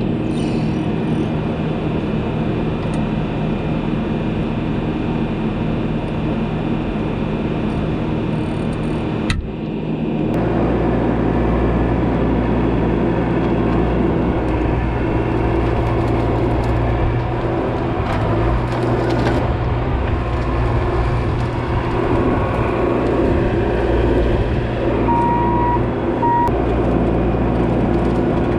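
Diesel engine of a Bobcat E42 mini excavator running steadily. About nine seconds in the sound breaks off briefly and comes back with a deeper, stronger low hum.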